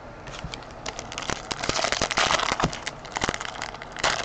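Crinkling and crackling of a trading card pack's foil wrapper being handled, with many quick sharp clicks, busiest about halfway through.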